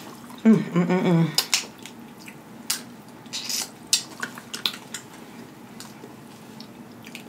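Snow crab leg shells being cracked and broken apart by hand, a string of scattered sharp clicks and crackles.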